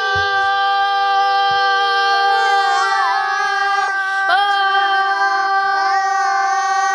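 Singing in a child's voice: long held notes that slide up and down between pitches, with no spoken words.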